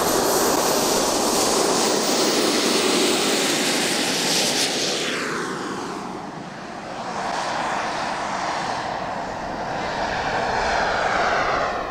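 Radio-controlled scale B-2 Spirit jet making a low, fast pass: a loud, steady rushing jet noise that drops in pitch as it goes by about five seconds in. It then builds again before cutting off abruptly at the end.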